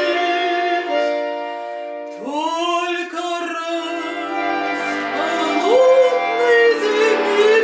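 A singer holding long notes with vibrato over steady accordion chords, the voice sliding up into a phrase about two seconds in.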